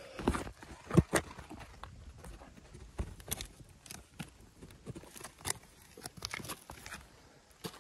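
Footsteps in trainers scrambling over loose stone rubble and gravel: irregular crunches and scrapes, with two heavier steps about a second apart near the start.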